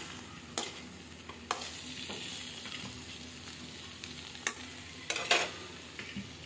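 Metal spatula stirring potato and spinach curry in a steel pan, clacking and scraping against the metal several times, the loudest clacks about five seconds in. Under it the curry sizzles softly as it cooks down for its final minutes.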